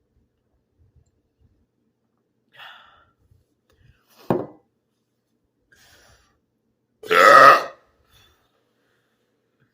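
A teenage boy burping on purpose twice: a short burp about four seconds in, then a longer, louder one about seven seconds in. A faint, brief noise comes before them.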